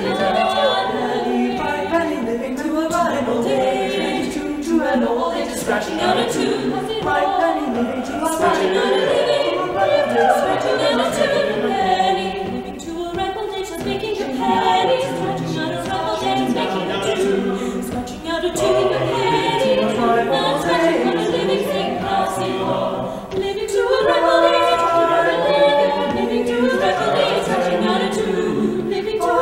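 Mixed-voice a cappella ensemble singing in close harmony, an arrangement in Appalachian folk style with syncopated rhythms.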